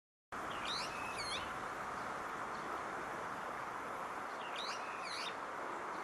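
Brown-eared bulbul calling: two short phrases of high, sweeping notes about four seconds apart, over a steady background hiss.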